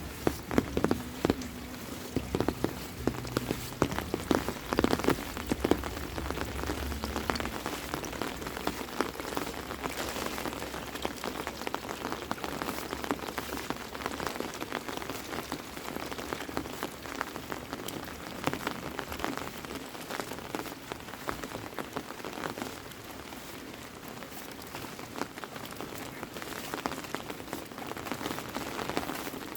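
Heavy rain falling steadily, a dense patter of drops with sharper close drop hits. A low rumble under it fades out about seven seconds in.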